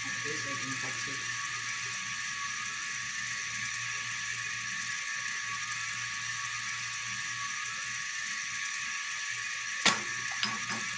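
Steady hiss throughout, broken about ten seconds in by one sharp snap and a few small ticks as a paper peso bill is yanked out from between two glass bottles stacked mouth to mouth.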